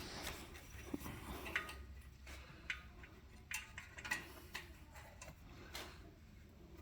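Faint, irregular light clicks and taps of hand tools and metal parts being worked on by hand.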